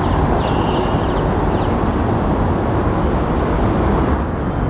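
Steady rush of wind over the microphone while cycling, mixed with road traffic noise.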